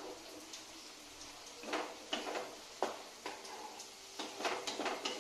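Wooden spatula scraping and knocking against a metal kadai while thick masala is stirred. The knocks come irregularly, with a quick cluster about four to five seconds in.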